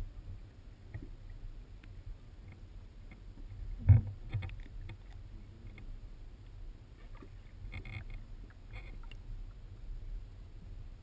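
Muffled underwater sound picked up by a GoPro in its waterproof housing: a steady low noise, with one sharp knock about four seconds in and a few fainter clicks near the end.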